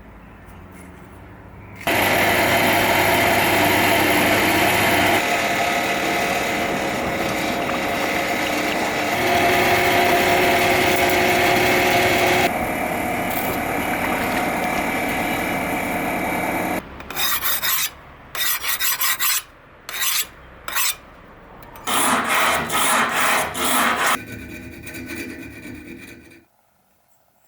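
Leaf-spring steel knife blade being ground with an abrasive tool: a steady grinding rasp lasting about fifteen seconds, followed by a series of shorter bursts as the blade is put to the abrasive and lifted off again.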